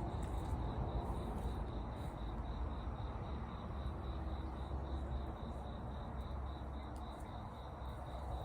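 A cricket chirping steadily: a high, even pulse about four times a second, over a steady low rumble of outdoor background noise.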